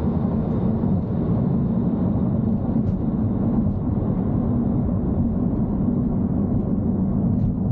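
Steady road and tyre rumble with a low drone, heard inside a Tesla Model 3's cabin as it drives along at low speed.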